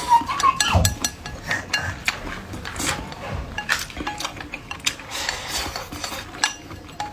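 Bowls, plates and eating utensils clinking and tapping during a meal, in many short, irregular clicks.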